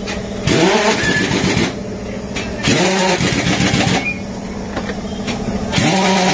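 A motor repeatedly winds up in pitch, about every three seconds, and each wind-up is followed by a loud rushing noise.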